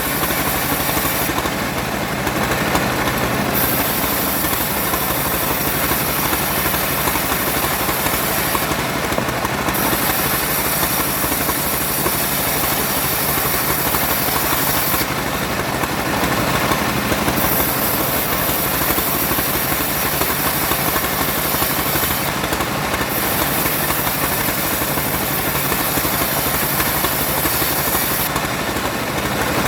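An engine-powered wood saw running steadily at work. The engine hum holds constant under a dense sawing hiss, and the highest part of the hiss drops away briefly about every six to seven seconds.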